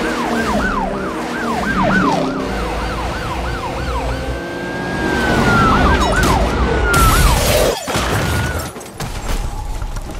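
Police car siren in a fast yelp of falling wails, about three a second, with one long held wail in the middle, over a low car-engine rumble. A sudden hit about eight seconds in.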